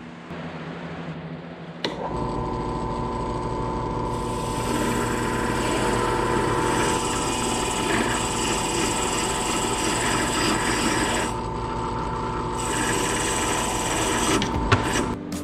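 A bench grinder motor starts about two seconds in and runs with a steady hum, while a rusty steel seat retaining clip is held against the spinning wheel, a harsh scraping that goes on in long passes with one short break. The grinder shuts off just before the end.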